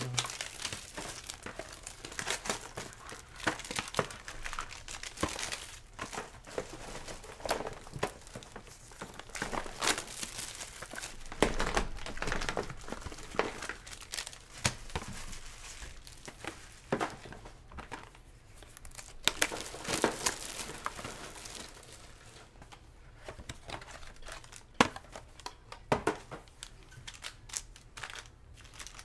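Foil trading-card pack wrappers crinkling and rustling as a pile of packs is handled and stacked, in irregular bursts of crackling with louder flurries now and then.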